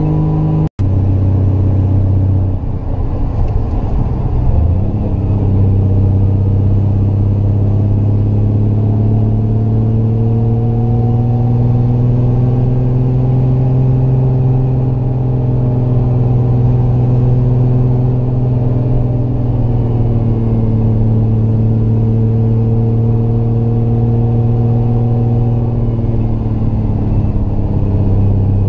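Triumph GT6 Mk2's straight-six engine heard onboard, pulling up a mountain road. The engine note drops just under a second in, right after a momentary cut in the sound, wavers for a couple of seconds, then holds steady, rising a little and easing back.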